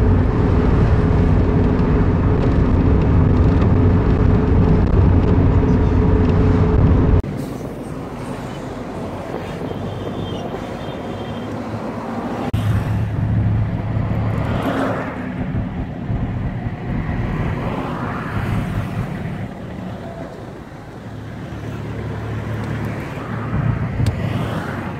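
A motor vehicle's engine drones steadily, heard from inside the vehicle while riding. About seven seconds in it stops abruptly, giving way to quieter road traffic with vehicles passing by.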